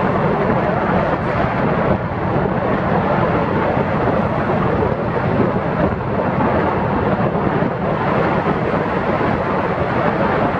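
Steady rush of wind buffeting the microphone, mixed with road and tyre noise from riding a small open vehicle at speed.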